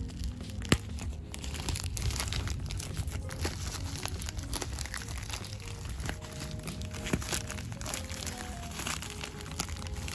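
Black plastic shipping bag crinkling and tearing as it is pulled open by hand, in many irregular rustles and crackles, over faint background music.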